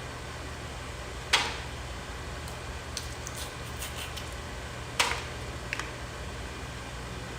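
Crab leg shells cracking as they are broken open for eating: two sharp cracks, about a second and a half in and again about five seconds in, with a few lighter clicks between.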